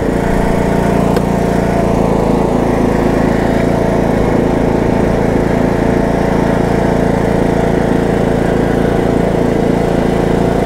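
John Deere E110 riding lawn tractor's engine running steadily at an even throttle as the tractor is driven.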